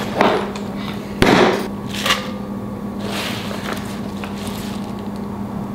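Kitchen prep sounds: three sharp knocks and clinks as a glass bowl and fork meet a kitchen scale and countertop, then rustling as handfuls of spinach leaves are dropped into the bowl. A steady low hum runs underneath.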